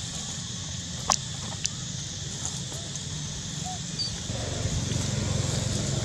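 Steady high insect buzz with two sharp clicks about a second in, then the dry-leaf rustle of a long-tailed macaque walking over fallen leaves, growing louder from about four seconds in.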